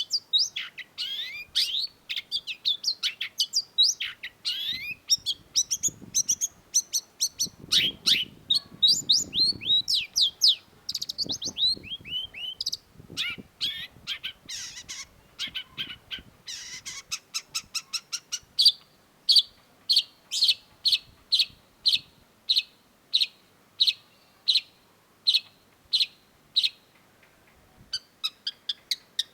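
Long-tailed shrike singing: a fast, varied run of chirps and sweeping notes, then evenly spaced sharp notes about two a second. The fast chattering picks up again near the end.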